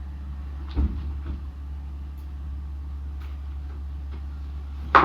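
Two knocks from handling a tire at a tire-changing machine, one about a second in and a louder one near the end, over a steady low hum.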